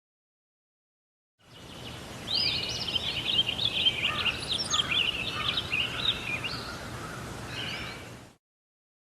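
Birds chirping in quick, dense twittering over a steady outdoor background hiss, a stock nature-ambience clip. It fades in about a second and a half in and cuts off suddenly near the end.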